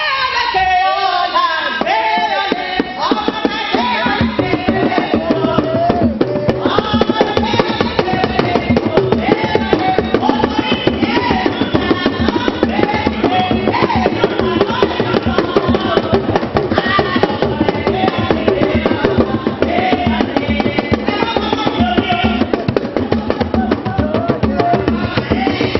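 Live Yoruba party drumming on hand drums: a fast, dense, steady rhythm, with a voice singing over it through a microphone during the first few seconds.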